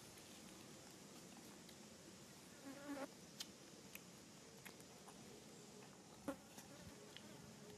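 Near silence, with a housefly buzzing faintly. There are a few soft clicks and a brief faint squeak about three seconds in.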